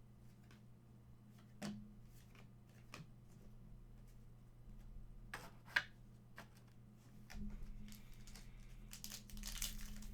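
Trading card pack wrappers being handled: scattered crinkles and clicks, then denser crinkling and tearing near the end as a pack is torn open.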